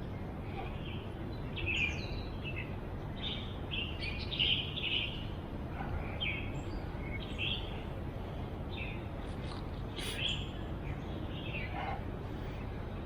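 Birds chirping in short, irregular calls over a steady low rumble.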